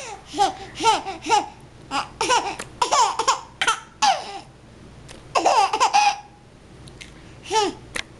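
Baby laughing in a string of short, high-pitched bursts with pauses between them.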